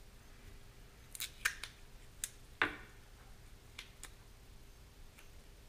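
Light clicks and ticks of hands working masking tape around a small plastic-baggie ejection charge, with a louder sharp crack about two and a half seconds in.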